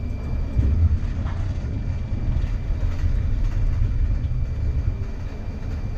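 Air-electric PCC streetcar running along the track, heard from inside the operator's cab: a steady low rumble.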